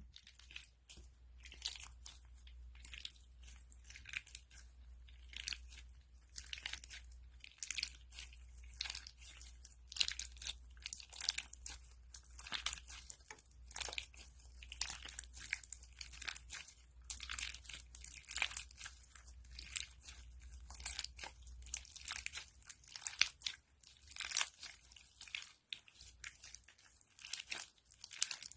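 Crunchy clear slime being squeezed, stretched and pressed by hand, giving a dense run of irregular crackling and popping with sharper crunches scattered through.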